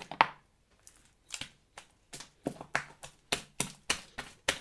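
Slime being kneaded and squeezed by hand, giving wet clicks and pops, the loudest just after the start, then a fairly even rhythm of about three a second from about halfway.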